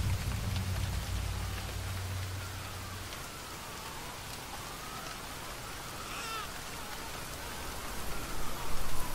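Steady hiss of rain, with the low rumble of thunder dying away over the first three seconds. Faint rising and falling chirps sound through the rain in the second half.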